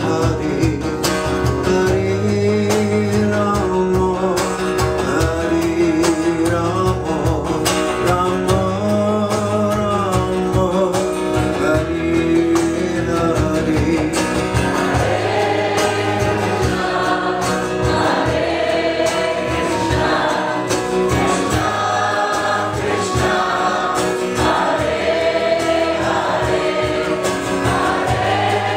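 Live kirtan: a lead singer and a group of voices chanting a devotional Hindu chant together over strummed acoustic guitar. The group singing grows fuller about halfway through.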